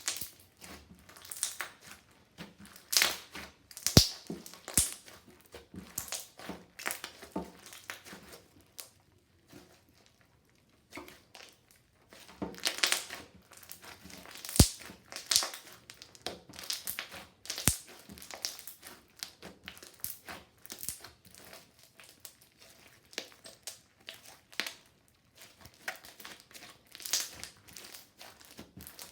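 Slime being squished and worked by hand, making irregular crackling, crinkling noises with a few sharp clicks.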